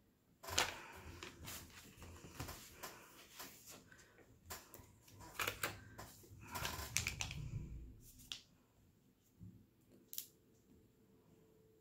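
Quiet, irregular taps, clicks and rustling of diamond painting: resin drills being pressed onto the canvas with the drill pen and the cover film being handled, busiest in the first eight seconds, with one sharp click about ten seconds in.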